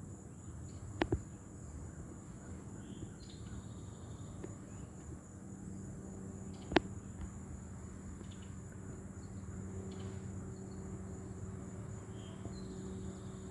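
Outdoor background noise with a steady low hum and faint short, high chirps, broken by a sharp double click about a second in and a single louder click a little past the middle.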